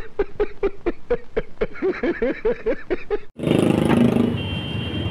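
A man's hearty laughter, a rapid run of 'ha-ha-ha' pulses about five or six a second, cutting off abruptly a little over three seconds in. It gives way to street background noise.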